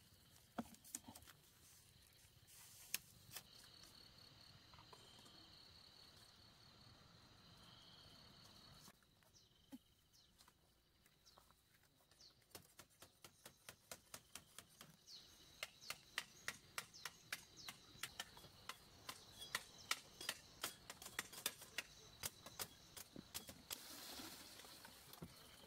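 Faint clicks and taps of split bamboo strips being handled and worked into a woven bamboo panel, with a quick run of clicks at about three a second through the second half, over a faint steady high tone.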